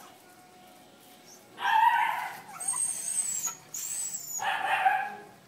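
Young puppies yelping and whining: two loud cries, one about a second and a half in and one near the end, with thin high-pitched squeals between them.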